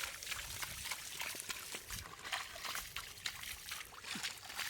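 Water splashing and trickling in a rapid run of small irregular splashes and drips.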